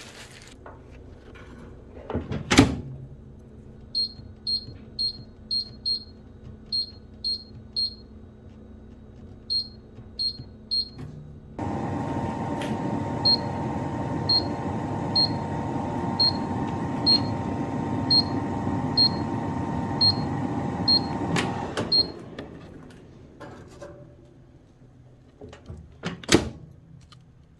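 An electric air fryer toaster oven being started. A sharp knock, then a string of short, high electronic beeps at uneven intervals. Then the oven's fan and heater run with a steady hum for about ten seconds, with a short beep about once a second, and stop abruptly. Another sharp knock follows near the end.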